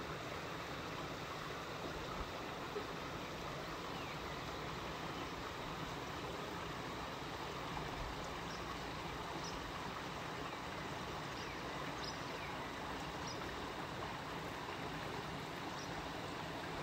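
Steady rushing of river water, with a few faint high chirps now and then.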